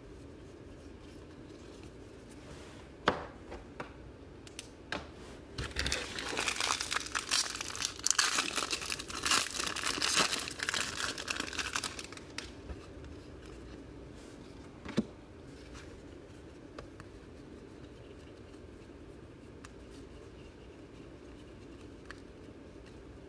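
Wrapper of a Topps baseball card pack being torn open and crumpled by hand, a dense crinkling that lasts about six seconds, starting about six seconds in. Before and after it come a few single sharp clicks, one a few seconds in and one about fifteen seconds in, from cards being handled.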